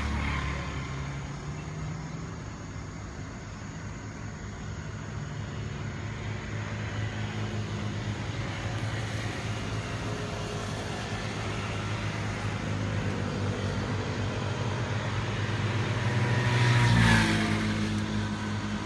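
Steady road traffic from an elevated highway, with one vehicle growing louder and passing close to the end.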